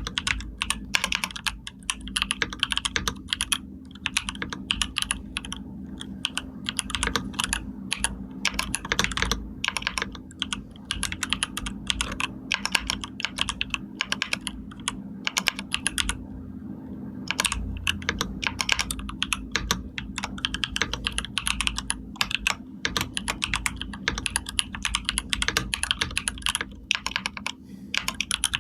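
Continuous typing on a computer keyboard: rapid, irregular key clicks in runs, with a brief pause about halfway through. A faint steady hum sits underneath.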